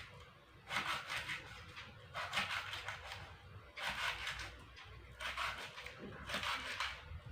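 Knife slicing a stalk of lemongrass into pieces: short runs of crisp cutting strokes, one run about every second or so.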